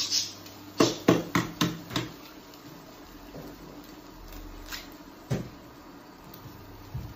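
Eggs being knocked against the rim of a frying pan to crack them: five quick sharp taps about a second in, then a single knock a few seconds later.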